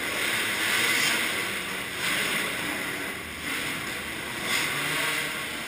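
Muffled, rushing noise of dirt-bike engines running in an indoor motocross hall, with no clear engine note, swelling and easing a few times.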